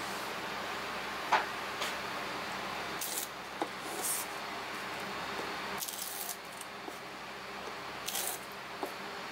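Kitchen knife cutting dry nori sheets on a cutting board: several short, crisp, crackling cuts, with a knock about a second in and a steady hum behind.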